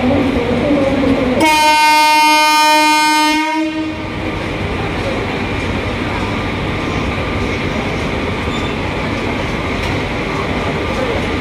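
Electric locomotive's horn sounding one long steady blast about a second and a half in, lasting about two seconds. After it, a steady rumble and hum of the train at the platform.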